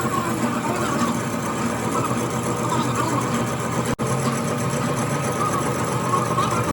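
A machine running steadily with a constant, even hum, dropping out for an instant about four seconds in.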